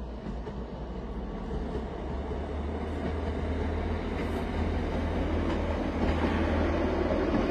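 Two-car ScotRail Class 156 diesel multiple unit crossing a stone viaduct: a steady low diesel engine drone under the rumble of wheels on rail, growing steadily louder as the train comes nearer.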